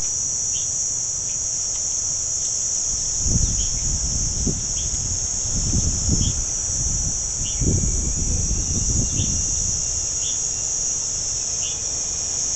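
Steady, high-pitched chorus of insects, with short chirps recurring about once a second.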